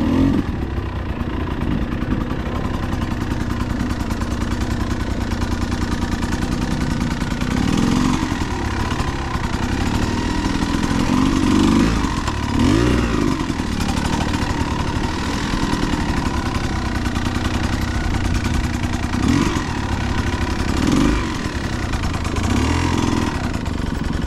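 Dirt bike engine running at low speed over rough ground, heard from the rider's seat. The revs rise and fall in short throttle bursts several times.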